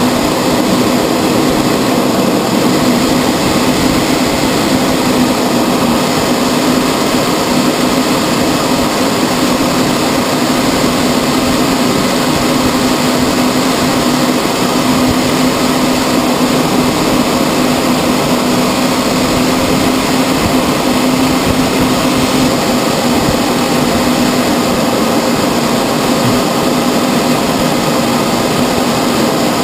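Steady cockpit noise of a CT-114 Tutor jet in flight: its single J85 turbojet and the airflow, a constant rush with a steady low hum beneath it, heard from inside the cockpit.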